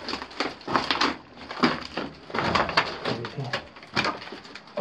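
Irregular crunching and scuffing footsteps on loose rock, a few steps a second.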